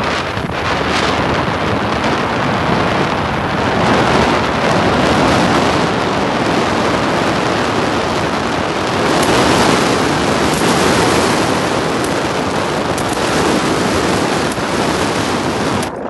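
Strong wind buffeting the microphone: a loud, steady rushing noise with no distinct pitched sounds, cutting off sharply at the end.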